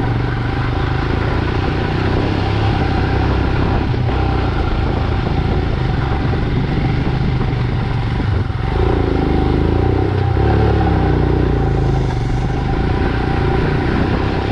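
Royal Enfield Himalayan's single-cylinder engine running steadily as the motorcycle is ridden along a rough off-road track, with a brief rise and fall in revs about nine seconds in.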